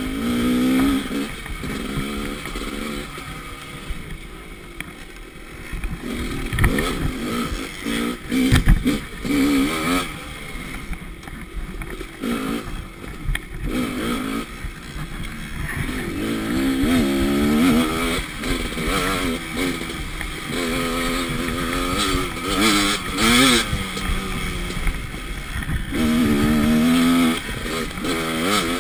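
Dirt bike engine revving up and down over and over as the bike is ridden over rough trail. A cluster of sharp knocks comes about seven to nine seconds in as the bike bounces over the ground.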